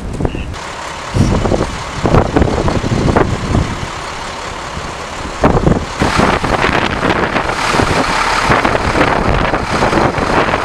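Strong gusty wind buffeting the microphone in irregular low rumbles, with a louder rushing sound from about six seconds in.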